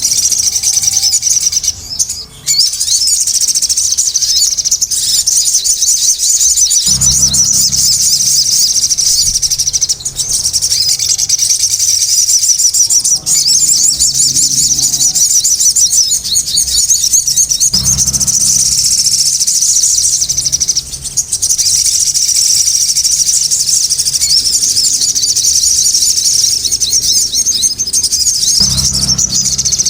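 Sogon (ruby-cheeked sunbird) chattering without a break in a rapid, high-pitched stream of twitters and trills.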